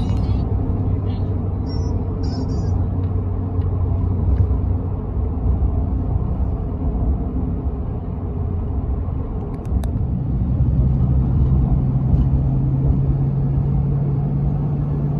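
Car engine and road noise heard while driving: a steady low rumble with an engine hum that steps up in pitch about two-thirds of the way through.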